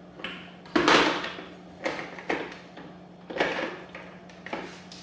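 Plastic parts of a Cuisinart slow juicer knocking and scraping as they are fitted onto the motor base: about five short clatters, the loudest about a second in.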